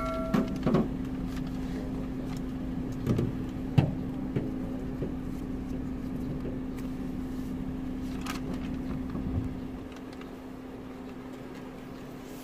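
Steady low hum of a car idling, heard inside the cabin, with a few light knocks and clicks about three to four seconds in. The rumble eases slightly near the end.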